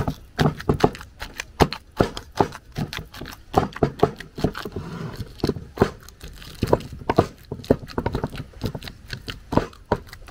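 A knife chopping plantain on a cutting board: sharp, irregular knocks, about two or three a second.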